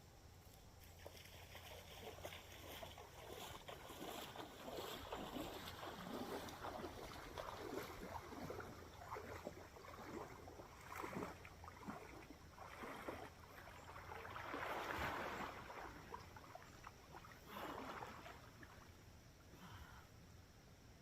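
Faint water splashing and sloshing in irregular bursts, swelling loudest about fifteen seconds in.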